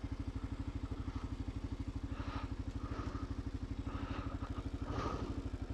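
Kawasaki KLR650's single-cylinder four-stroke engine idling with the bike stopped, a steady, even beat of about a dozen firing pulses a second.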